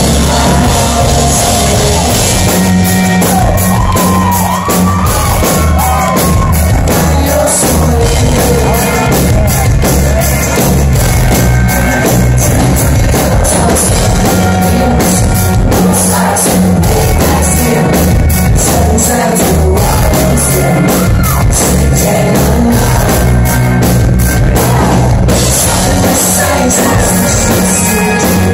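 Live rock band playing loud: a sung lead vocal over electric guitars and a steady drum beat, with shouting from the singer or crowd.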